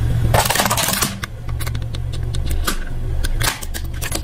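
Plastic toy car cracking and snapping as a car tyre rolls over it and crushes it: a rapid run of sharp cracks and clicks over a low steady drone.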